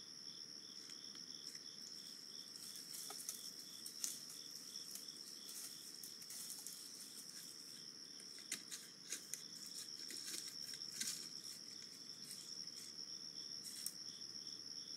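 Night insect chorus: a steady high shrill with a cricket chirping in an even pulse, about three chirps a second. Scattered sharp clicks and rustles, thickest through the middle.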